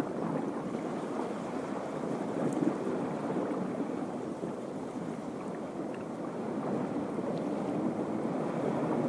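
Sea waves washing on a rocky shore, with wind buffeting the microphone: a steady rushing noise.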